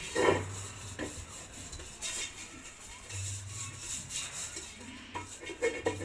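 A hand rubbing margarine around the inside of a metal sufuria to grease it for baking, with the pot knocking and scraping a few times. The sharpest knock comes just after the start, and there are several smaller knocks near the end.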